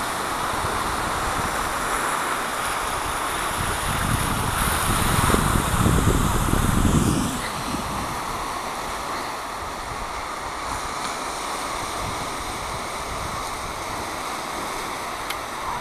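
Small waves washing onto a sandy shore, with wind on the microphone. A louder low rush comes about four seconds in and dies away by about seven and a half seconds.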